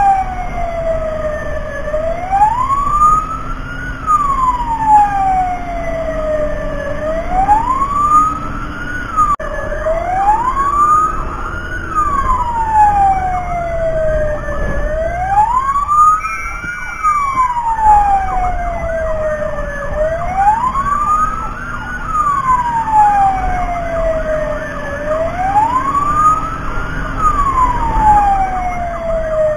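Fire truck siren in wail mode, its pitch sweeping up and then slowly falling, about every four seconds, over a low engine rumble.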